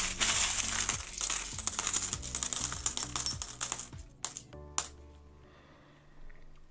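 A mass of loose metal coins clattering and jingling against each other in a tub for about four seconds, then two single clinks, with soft background music underneath.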